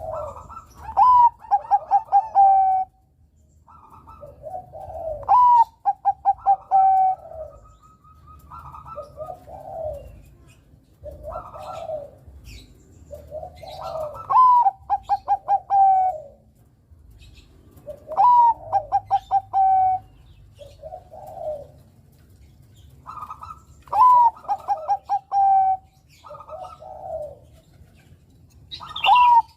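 Zebra dove (Bangkok-bred perkutut) singing its cooing song over and over. Each loud phrase opens with a rising note and ends in a quick run of rhythmic pulsing coos, and it comes about every four to six seconds, with softer short coos in between.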